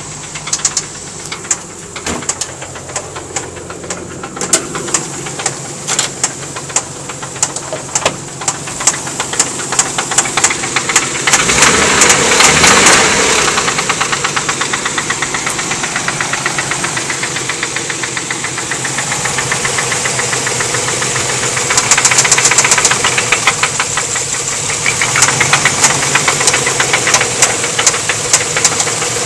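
Nissan 300ZX Z32's 3.0-litre VG30DE V6 running with a loud, rhythmic rod knock from the number 4 cylinder, the sign of a blown engine. The knocking quickens and grows louder as the engine is revved, about eleven seconds in and again past twenty seconds.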